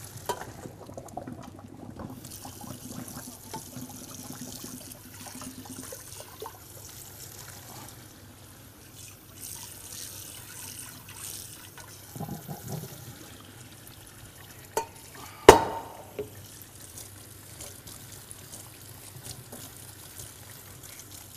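Boiled pasta being drained: water pouring and splashing into a sink for several seconds, followed by some clatter and one sharp knock about fifteen seconds in.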